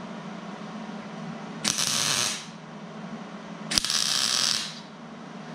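Two short wire-feed welding tacks on steel bed-frame angle iron, each arc sizzling for about a second. The second comes about two seconds after the first and starts with a sharp snap.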